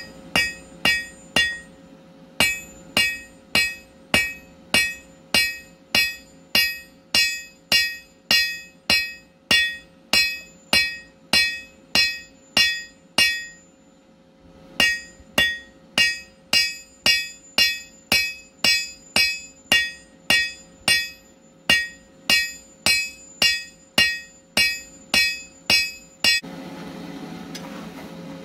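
Hand hammer striking a red-hot steel bar on an anvil, flattening its end: a steady run of ringing blows at about two a second, with a short break about halfway through. The blows stop near the end, leaving a steady low rushing hum.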